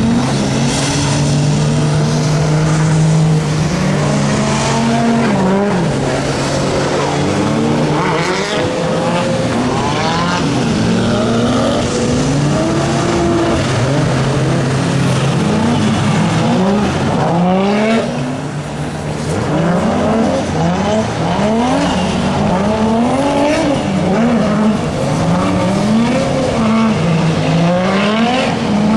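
Car engines on a race track revving hard. One engine holds a steady note for about the first half, then revs repeatedly rise and drop in quick succession, with tyre squeal.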